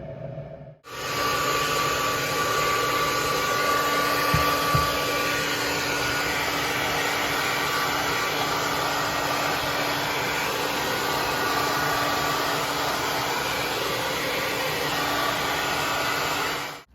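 An electric blower (a fan heater or hair dryer used to dry bathed chickens) running steadily: a loud airy rush with a steady whine. It starts abruptly about a second in and stops abruptly just before the end.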